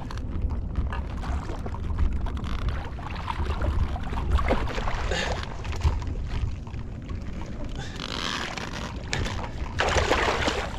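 Wind rumbling on the microphone over water sloshing against a stand-up paddleboard, then a hooked yellowtail (buri) thrashing and splashing at the surface as it is brought into a landing net, loudest near the end.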